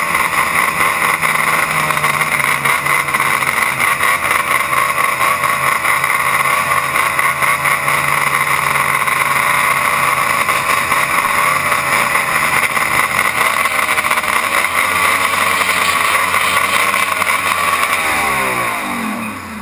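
Race snowmobile engine heard from on board the sled, running loud and steady at speed with its pitch wavering. Near the end it winds down, falling in pitch as the sled slows.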